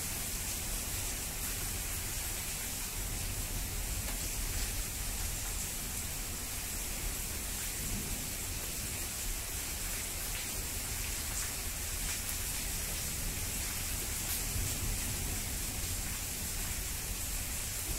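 Steady heavy rain falling: an even hiss with a few faint drop ticks.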